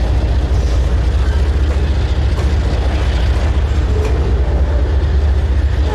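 Slow-moving freight train, its loaded flatcars rolling past with a steady low rumble of steel wheels on rail.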